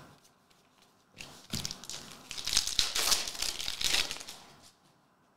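Plastic wrapper of a Parkhurst Champions hockey card pack crinkling as it is handled and opened. It starts about a second in and lasts roughly three and a half seconds.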